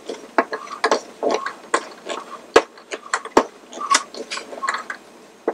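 Screwdriver working at the axle screw in the plastic top of a Mr. Christmas musical carousel: irregular clicks and scrapes of the tool and the handled plastic parts, with two sharp knocks about two and a half and three and a half seconds in. The screw is spinning in place rather than backing out.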